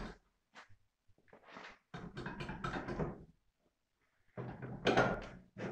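Rusty steel front bumper of a VAZ-2105 Zhiguli being pulled off by hand, with several bouts of metal clattering and scraping, the loudest about four and a half seconds in.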